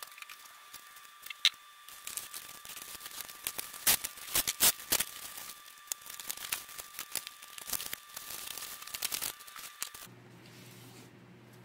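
A parcel being unboxed: the packaging is handled and torn open in a run of irregular crackles and sharp clicks. The crackling stops about ten seconds in, giving way to a steady low hum.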